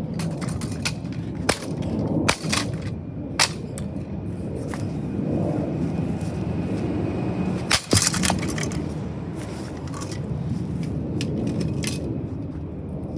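Sharp cracks and knocks of a small plastic light-socket ceiling fan being smashed, a few scattered blows with the loudest cluster about eight seconds in.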